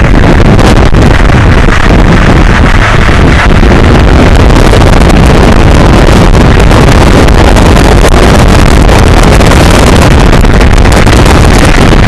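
Wind buffeting the phone's microphone: a loud, unbroken rushing roar that overloads the recording.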